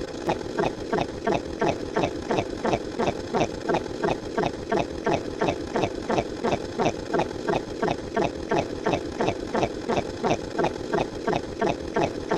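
A short pitched sound effect that falls in pitch, repeated rapidly and evenly about three times a second.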